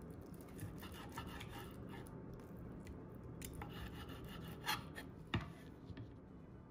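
Knife slicing through a cooked steak on a wooden cutting board, the blade scraping and tapping faintly against the board, with two sharper clicks a little before the end.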